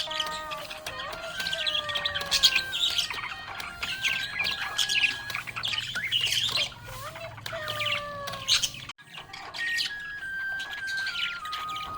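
Budgerigars chirping and warbling in a rapid, busy chatter over a simple melody of held, stepping notes, with a brief break about nine seconds in.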